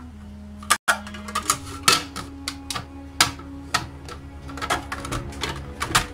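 A string of irregular plastic clicks and knocks as the red lid of an electric food chopper is lifted and fitted back onto its clear bowl holding chickpeas and garlic. The motor is not running. Soft background music plays underneath.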